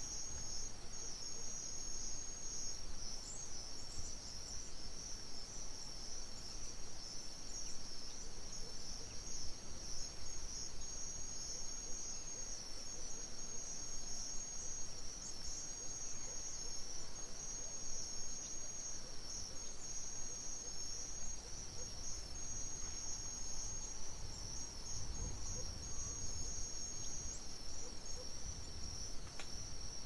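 Crickets chirping continuously in a steady, high-pitched, finely pulsing trill.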